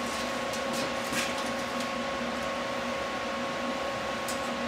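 A steady mechanical hum holding a few even tones over a low noise haze, with a few faint short clicks and scratches about a second in and once near the end.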